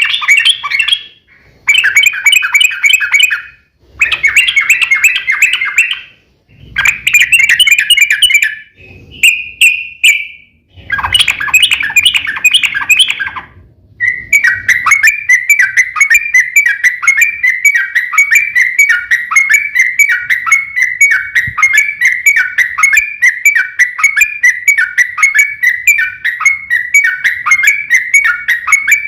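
Yellow-vented bulbul (trucuk) singing: several short bursts of bubbly, chattering song with brief pauses between them. About halfway through it runs into one long, unbroken string of quickly repeated notes, the long rapid trill that keepers call "ropel panjang".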